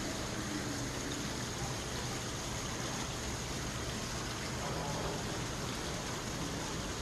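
Steady rushing of running water, even and unbroken, over a low hum.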